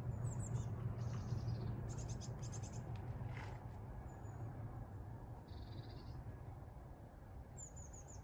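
Small birds chirping and trilling in short high phrases several times, over the low rumble of a diesel train that slowly fades away as it recedes.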